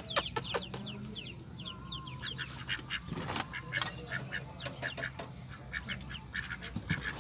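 Pekin ducks and their newly hatched ducklings calling in the pen: many short, high peeps in quick succession.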